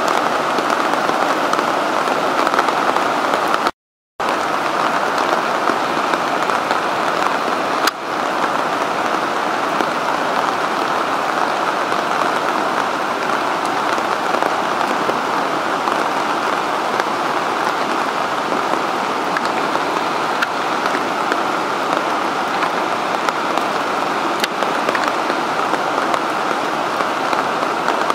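Floodwater spilling over the full crest of a concrete dam wall, about 2.7 m deep over the top, and crashing into the turbulent plunge pool below: a steady, even rush of water. It cuts out completely for a split second about four seconds in.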